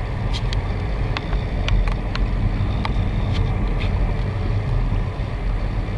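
Car interior noise while driving slowly: a steady low rumble of engine and tyres, with scattered light clicks and rattles.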